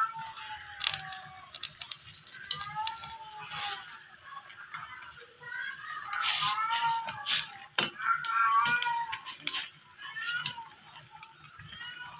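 A metal ladle clinking and scraping against a steel cooking pot in irregular clicks and rattles, with a wavering pitched sound over it, loudest in the second half.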